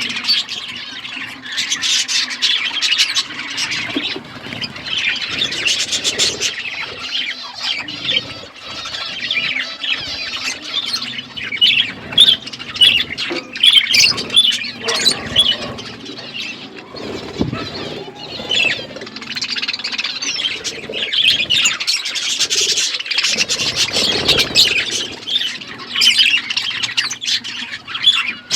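A flock of budgerigars chattering continuously: overlapping rapid chirps, warbles and squawks.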